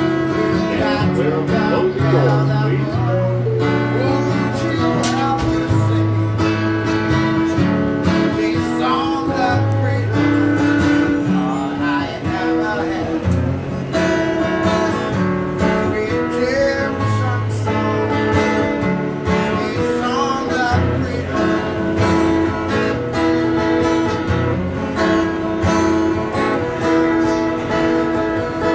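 Acoustic guitar strummed live, a steady stream of chords with the bass notes changing every second or two.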